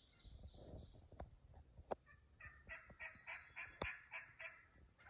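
Wild turkey gobbling, faint: one rapid rattling run of about eight notes lasting about two seconds, starting about two seconds in. Before it, low rustling and a few sharp snaps.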